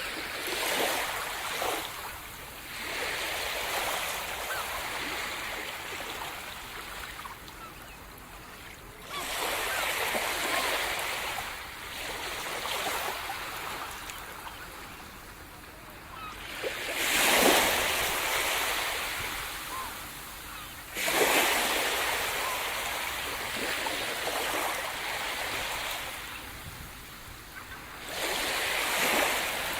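Sea surf: waves breaking and washing up the shore, one surge after another every few seconds. The loudest break comes about two-thirds of the way through.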